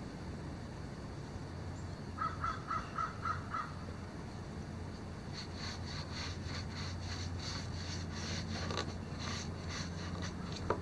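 Paintbrush strokes spreading thick Behr DeckOver coating over wooden deck boards, a repeated scratchy swish through the second half, over a steady low hum. Shortly before the strokes, a bird gives six quick calls.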